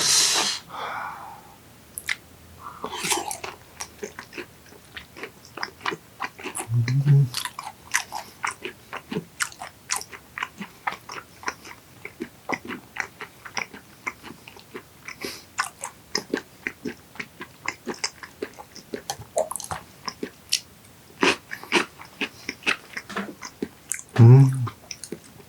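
Close-up wet chewing of raw yellowtail belly sashimi: a quick, uneven run of mouth clicks and smacks, with a louder burst as the bite is taken at the start. A short low hum comes twice, about seven seconds in and near the end.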